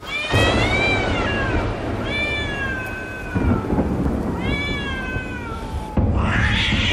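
A cat meows three long times, each call rising then falling in pitch, over a steady low rumble of thunder. About six seconds in, a sudden crack breaks in, followed by a hiss.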